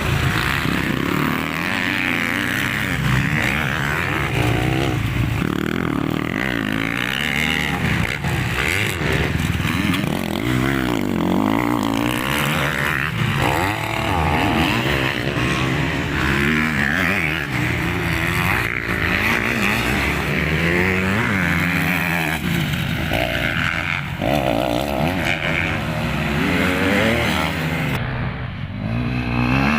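Several motocross bikes running on a dirt track, their engines revving up and down again and again as they ride, the sounds of different bikes overlapping.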